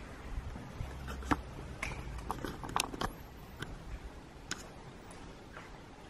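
A run of sharp, irregular clicks and knocks, densest in the first half, over a low steady background hum.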